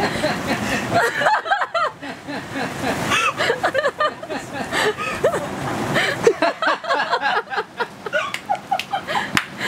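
Heavy rain pouring down and splashing, with several excited voices shouting and laughing over it.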